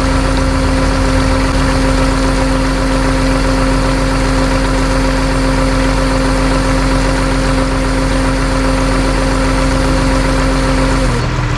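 A motor vehicle's engine running at a steady speed with a constant hum. It breaks off abruptly near the end.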